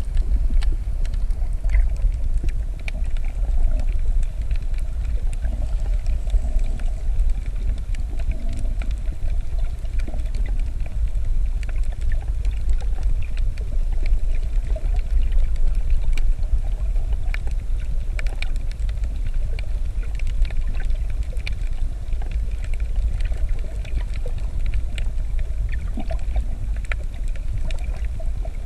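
Underwater sound picked up by a camera held below the surface: a steady low rumble of water movement, with scattered faint clicks and crackles throughout.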